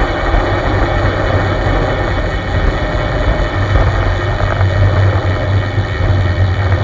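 Steady wind rumble on a bicycle-mounted camera's microphone, mixed with the hiss of road-bike tyres rolling on asphalt.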